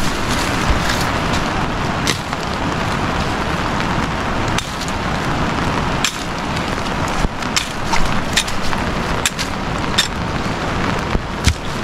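A sickle cutting and tearing through brush: stems and twigs snapping in short sharp cracks, more often in the second half, over a steady rushing background noise.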